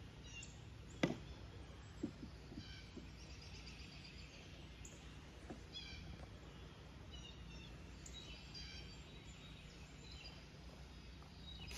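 Small birds chirping and singing in short repeated phrases, with a few sharp knocks from handling the wooden pallets, the loudest about a second in, over a steady low outdoor rumble.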